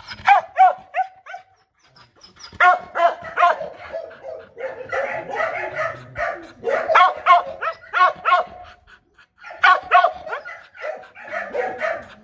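H'Mong bobtail dog barking in quick bouts of several barks, with short gaps between bouts. These are demand barks, asking for attention, not aggressive threat barking.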